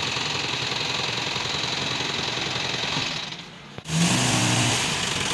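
Owner-type jeep's engine running steadily, with a short dip in the sound a little past three seconds in that ends in a sharp click.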